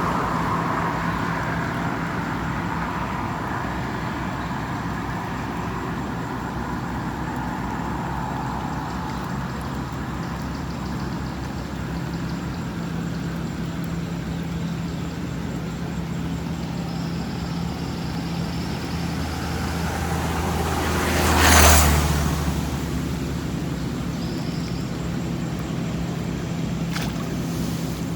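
A motor vehicle engine running steadily, with a louder noise that rises and fades about 21 seconds in, like a vehicle passing close by.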